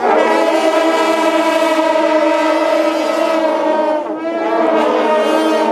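A group of shaojiao, long straight brass temple horns, blowing together in a long sustained blast of several overlapping tones. The blast breaks off about four seconds in and starts again.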